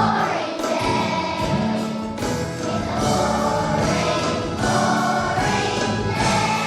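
Children's choir singing a song over a musical accompaniment with a steady beat.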